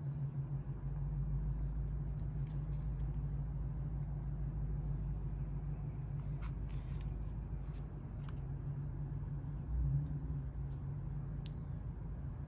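A steady low mechanical hum, like a running motor nearby, with a few faint clicks as the pistol is handled.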